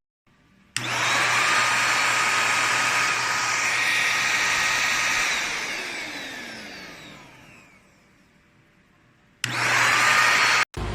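Deerma vacuum cleaner motor switched on, rising to speed about a second in and running steadily, then switched off and winding down with a falling whine over a couple of seconds. It starts up again briefly near the end and cuts off suddenly.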